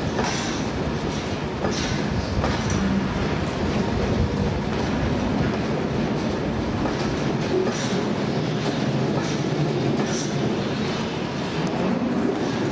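A train passing close by: a steady rail rumble with scattered sharp clicks of wheels running over the track.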